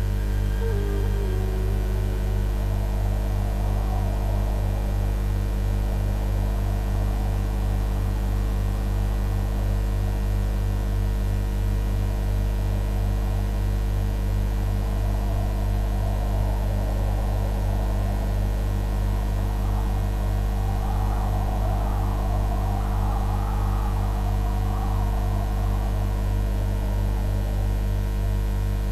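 Steady electrical mains hum with a ladder of overtones on an old film soundtrack, under a wavering, muffled rushing noise that grows a little stronger near the end. The tail of background music dies away in the first second.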